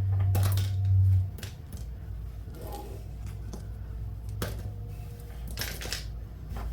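Small charms clicking and clinking now and then as they are handled and sorted by hand. A steady low hum sounds under the first second and stops suddenly.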